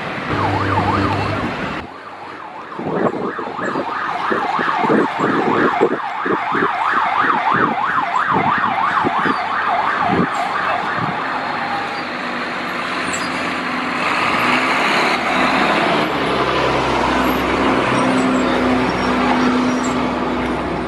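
A police siren yelping, its pitch sweeping up and down about three times a second. It fades out about halfway through, leaving steady vehicle and traffic noise with a low engine hum.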